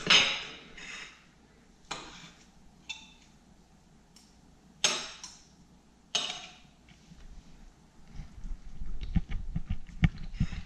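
Knife and fork scraping and clinking against a ceramic plate while cutting through a stack of pancakes: a handful of sharp scrapes a second or two apart, some with a short ring, then soft low thuds near the end.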